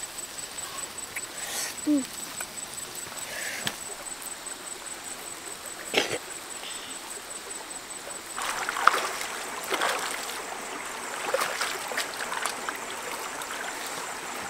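Shallow stream running over rocks, with scattered crackles and pops, thickest about halfway through, from shrimp sizzling in a clay pan over a wood fire. One sharp click about six seconds in.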